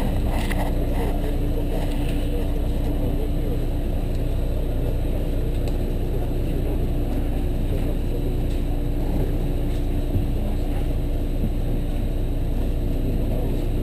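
City bus engine idling steadily, heard from inside the passenger cabin as an even low drone with a constant hum.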